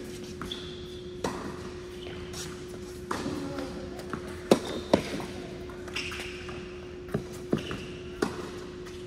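Tennis rally on an indoor hard court: the pop of racket strikes on the ball and the thud of ball bounces, with the sharpest pair of hits about halfway through. A few short shoe squeaks are heard over a steady hum.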